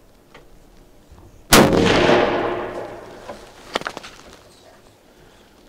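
A single rifle shot about a second and a half in, its report rolling away and fading over the next second and a half. A few sharp clicks follow about a second later.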